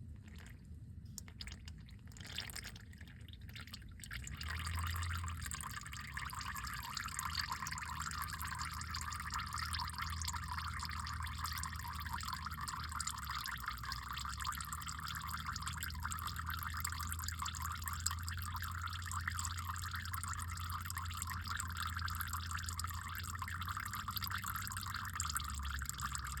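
A few light knocks, then about four seconds in a steady stream of liquid starts pouring into a container and runs on without a break. This is likely gasoline-diluted engine oil draining from the pan of a 1996 Silverado's 5.7 Vortec V8.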